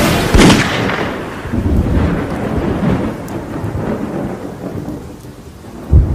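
Thunderclap sound effect used as a transition in a dance mix: a sharp crack about half a second in, then a long rumble and hiss that fades over several seconds, with a heavy low hit near the end.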